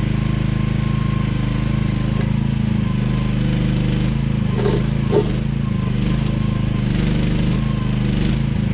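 AGT QH12R mini excavator's engine running steadily, with two short clunks about halfway through, a second or so apart.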